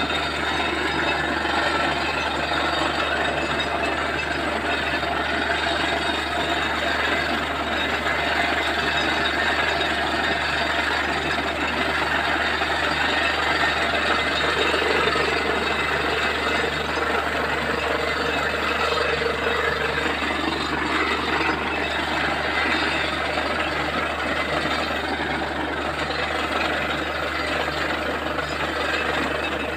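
Truck-mounted borewell drilling rig running steadily while drilling, with a low regular pulsing, as water and air are blown up out of the bore around the drill pipe: the bore has struck water.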